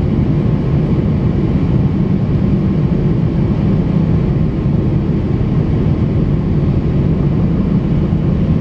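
Steady low cabin rumble with a hiss above it inside an Airbus A350-900 in flight: noise from its Rolls-Royce Trent XWB-84 engines and the airflow, heard through the fuselage by the window.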